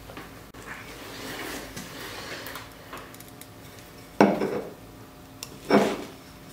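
Stainless steel mesh screen and machined metal carb scoop being handled: a scraping rustle, then two sharp metallic clinks about a second and a half apart, the first the louder.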